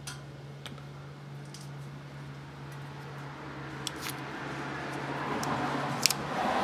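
A few sharp light clicks and rustling from hands handling small parts, over a steady low hum. The rustling grows louder near the end, and the loudest click comes about six seconds in.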